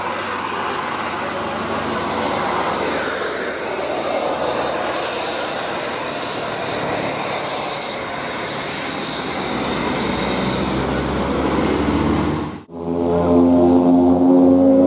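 Rumble and road noise of a passing bus, swelling slightly until it cuts off abruptly about twelve and a half seconds in. Right after, a telolet multi-tone musical bus horn starts sounding loudly.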